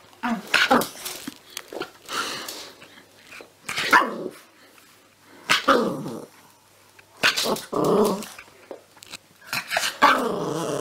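A small, fluffy black puppy gives a string of short, high yapping barks mixed with growls, about six separate outbursts. Near the end a longer, held call begins.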